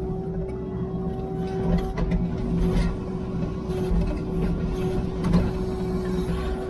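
Diesel engine of a piece of heavy equipment running steadily, heard from on board the machine, a low drone with a steady hum above it.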